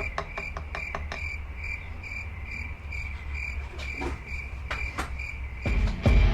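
A cricket chirping steadily, about two chirps a second, with light clicks and tapping from work at the bench. Heavier knocks come near the end.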